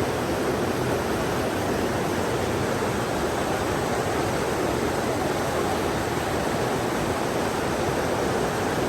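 Steady rushing water, an even unbroken noise.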